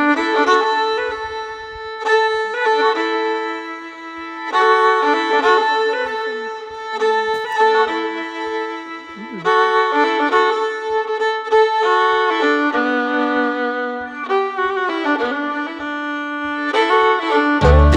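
Background music: a fiddle playing a melody of held and stepping notes over a light steady beat, with bass notes coming in near the end.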